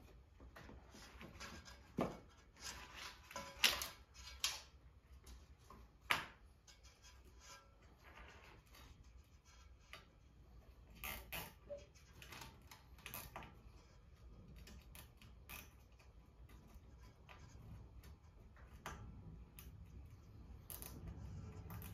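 Scattered light clicks, taps and rustling of hands routing and fastening cable wiring along a laser engraver's metal frame, with a sharper click about six seconds in.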